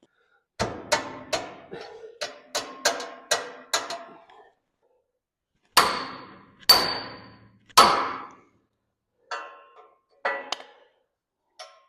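Hammer striking steel parts of a tractor's front axle and bolster. There is a quick run of about ten blows, then three heavier blows with a ringing tail, then a few lighter taps near the end.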